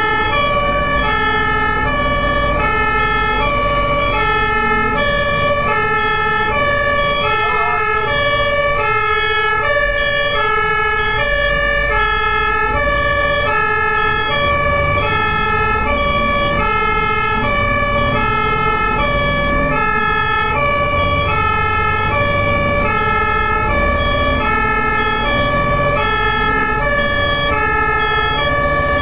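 German two-tone emergency vehicle siren (Martinshorn) sounding continuously, high and low tones alternating at a steady rhythm, over low engine and road rumble.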